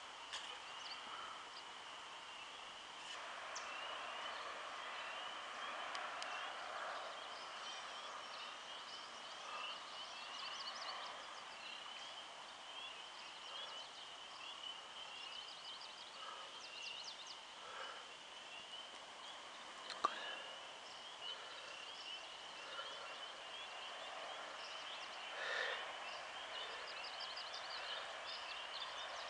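Outdoor natural ambience: a steady high chorus of many overlapping chirps. Brief higher trills come every few seconds, and there is a single sharp click about twenty seconds in.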